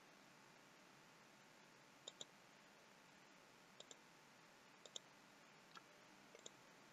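Faint clicks of a computer mouse's left button over near-silent room tone, about five times, several heard as a quick double click.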